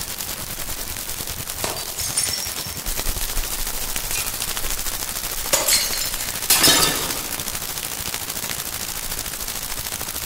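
Experimental noise-music texture: a dense, rapid crackle with several louder noisy bursts, the loudest about two-thirds of the way through.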